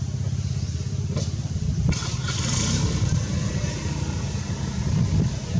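Steady low rumble of a running engine, with a single sharp click about two seconds in.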